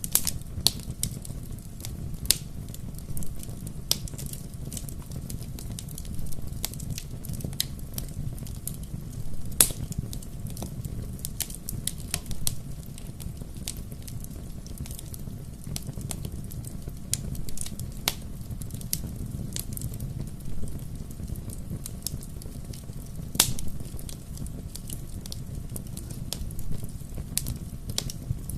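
Wood fire burning with a steady low rumble and irregular sharp crackles and pops, a few louder pops standing out.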